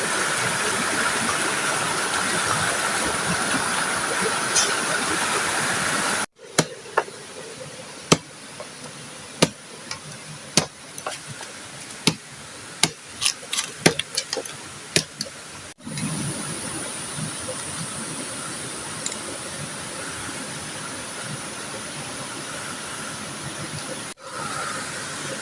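Steady rush of a flowing river. In the middle the water sound drops away, and a quieter passage holds a string of sharp knocks and clicks, a dozen or more, irregularly spaced.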